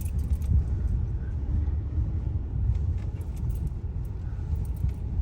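Steady low rumble of a moving vehicle's engine and road noise, heard from inside the vehicle, with faint small rattles and clicks now and then.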